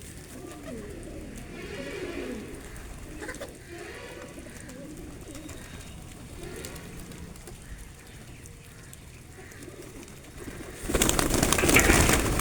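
Pigeons cooing, several low, bending calls repeating. Near the end a loud rushing burst of noise drowns them out.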